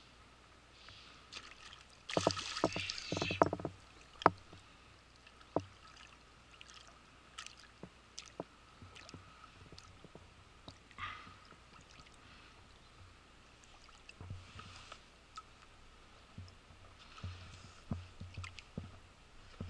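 Water splashing in a shallow stream: a loud, splashy burst lasting about a second and a half, starting about two seconds in, then scattered light splashes and clicks.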